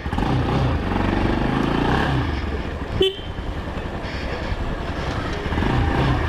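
Motorcycle engine running on the move, its note climbing in the first couple of seconds, with a short vehicle horn beep about three seconds in.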